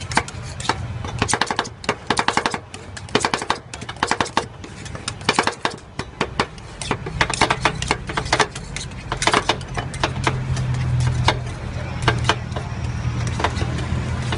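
Metal spatulas chopping and scraping ice cream on the frozen pan of a fried ice cream machine, in quick runs of sharp taps. Under it is the machine's steady low hum.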